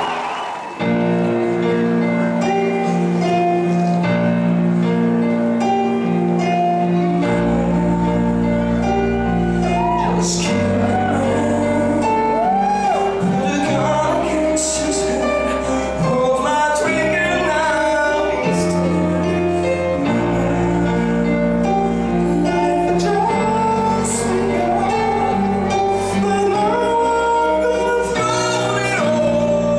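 Live musical-theatre song: sustained held chords, with a bass line joining about seven seconds in and a male voice singing over them from about twelve seconds in.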